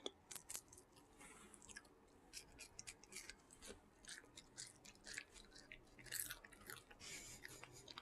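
Close-up chewing: soft wet mouth smacks and irregular clicks of food being worked in the mouth, several a second in places, quiet overall.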